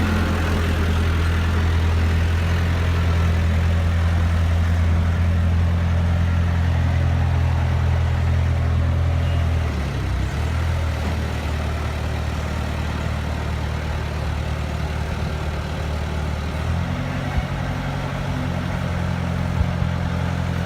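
Bobcat skid steer loader's engine running steadily as the machine is driven. Its note changes about halfway through and again near the end.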